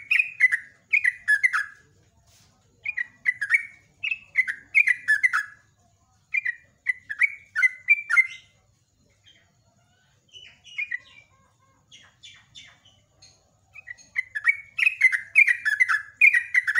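Yellow-vented bulbul (trucuk) singing in long, rapid runs of short, quick notes that slide downward. Near the middle the song thins to softer, scattered notes, then it picks up again in a dense run near the end.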